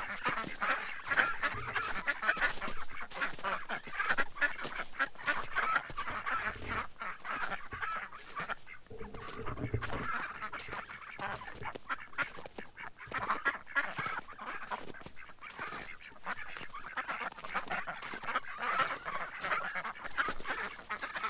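A flock of domestic ducks quacking and chattering, many short calls overlapping without a break.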